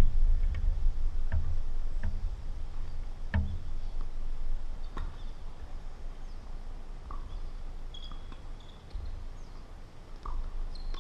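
Tennis balls struck by rackets: a few sharp, separate knocks in the first half, over a low rumble. The second half is quieter, with a few faint short high-pitched chirps.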